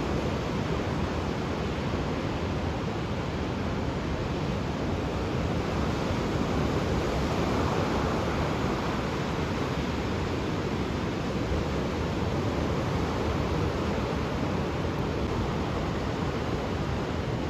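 Ocean surf: a steady rush of waves breaking and washing ashore, swelling a little about halfway through.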